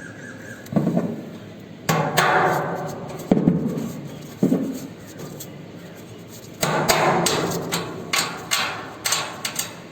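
Hammer driving nails through the holes of a window air conditioner's sheet-metal outer casing. There are four separate blows with short ringing tails in the first half, then a quick run of about ten lighter strikes near the end.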